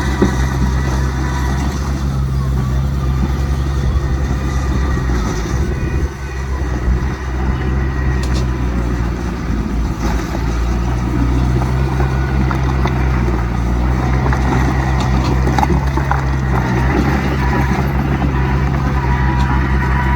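Heavy diesel engines of earthmoving machines running steadily at a low, even pitch, with a brief drop in level about six seconds in.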